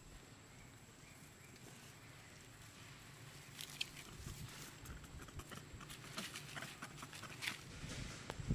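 Dry leaves rustling and crackling on dirt ground as macaques move about, a patter of short crackles starting about three seconds in and growing busier near the end.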